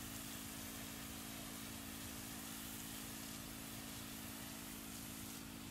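A steady, low motor hum under a constant hiss, unchanging throughout.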